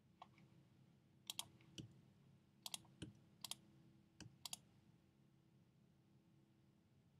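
Faint, sharp clicks of a computer mouse and keyboard: about a dozen over the first four and a half seconds, some in quick pairs, over a faint steady hum.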